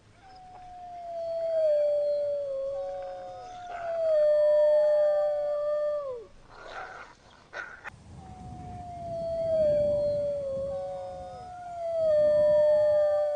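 Wolves howling: long, steady howls from two or more wolves overlapping, each ending in a falling glide, in two rounds with a brief rougher sound between them about halfway.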